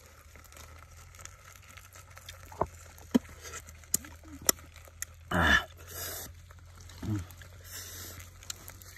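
Dung beetle shells clicking as fingers sort through them in a wooden mortar: a handful of sharp, separate clicks. About five seconds in comes the loudest sound, short and swooping steeply down in pitch, with a smaller one near seven seconds.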